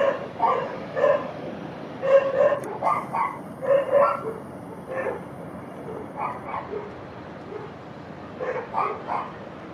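A dog barking repeatedly, short barks in irregular clusters that thin out and grow quieter after about five seconds.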